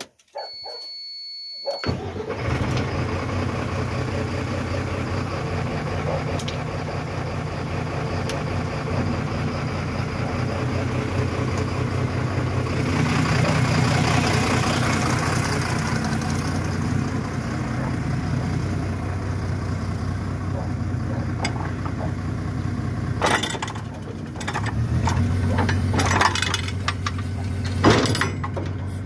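Mercedes-Benz Econic garbage truck engine being started: a steady high beep sounds first, then the engine catches about two seconds in and runs steadily. A few sharp clanks and knocks come near the end.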